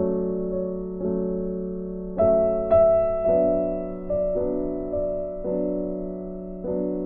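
Background music: soft piano or electric piano playing slow notes and chords, each struck and left to fade.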